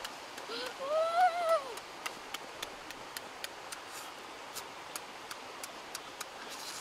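A child's short voiced sound, rising then falling in pitch, then crisp clicks from chewing and biting lettuce and chicken, a few per second.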